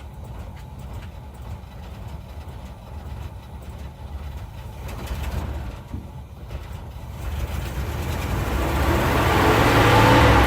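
1983 Chevrolet C10's 305 small-block V8, running on a freshly rebuilt four-barrel carburetor, idling and then revving up, growing steadily louder over the last few seconds.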